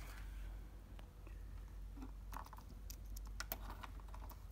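Plastic pluggable terminal-block connectors being handled and fitted onto the pin header at the back of a rack-mount audio monitor panel: a few faint, light clicks and taps, mostly in the second half.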